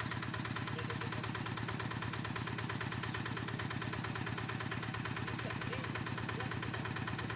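Two-wheel paddy-field tractor's diesel engine running steadily with a fast, even beat, pulling a moldboard plow through field soil.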